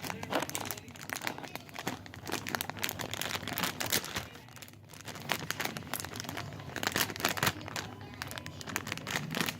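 Plastic packaging crinkling and rustling as it is handled, in dense irregular crackles with a few soft crunches and a short lull about halfway.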